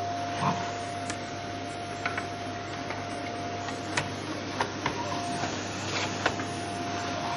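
Vacuum cleaner running steadily on a wooden floor: a constant motor hum with a steady whine, broken by scattered light clicks and knocks.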